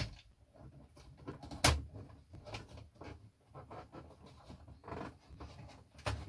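Plastic case of a Philips VG-8235 MSX2 computer clicking and knocking as it is pried loose by hand, with one sharp louder click about a second and a half in and another near the end.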